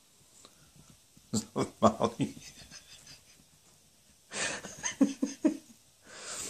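A person laughing in two bursts of short, pulsed laughs, about a second in and again about four seconds in, with breathy gasps between them.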